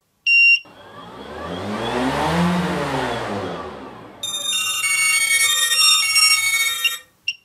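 Intro sound effects: a short electronic beep, then a whooshing fly-past that swells over about two seconds and fades, followed by a short electronic jingle of bright tones changing in steps, and one more brief beep at the end.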